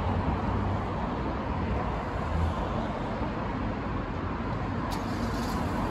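Steady noise of road traffic passing by a street.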